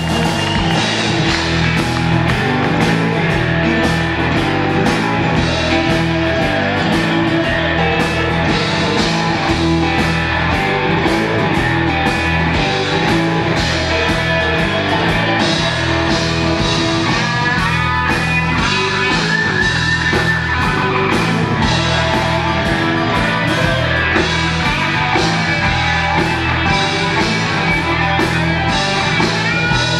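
Live blues band playing an instrumental passage: an electric guitar takes the lead over bass and drums with a steady beat. The guitar bends notes about two-thirds of the way through.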